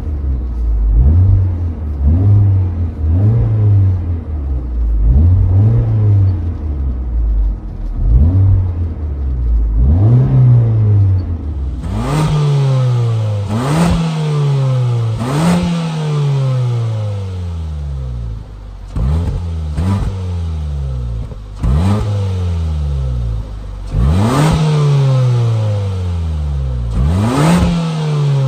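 Car engine revved over and over by blips of the accelerator, each rev rising sharply in pitch and falling back to idle, about once every second and a half. About twelve seconds in, the sound changes to the exhaust heard right at the tailpipe, brighter and with slower falls between revs.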